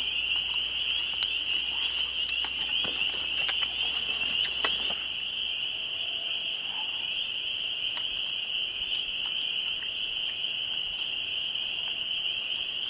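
A chorus of frogs calling as one steady, high, shrill sound. Light crackles of dry leaves being handled come in the first five seconds or so.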